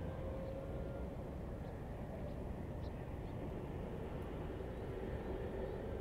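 Steady riverside outdoor ambience: a low, even rumble with a faint distant engine drone that slowly drops in pitch near the end, and a few brief faint bird chirps.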